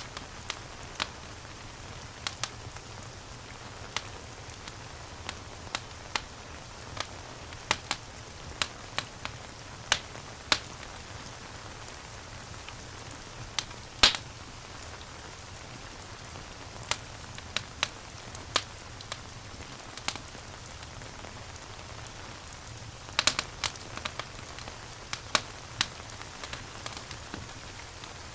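Rain and a crackling fireplace together: a steady rain hiss with a low rumble under it and irregular sharp pops and crackles, the loudest about halfway through and a quick cluster of them near the end.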